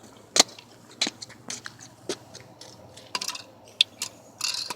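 Irregular clicks and knocks of hard parts being handled while a BMX wheel is worked on. The loudest is a sharp knock about half a second in, with a short scraping rustle near the end.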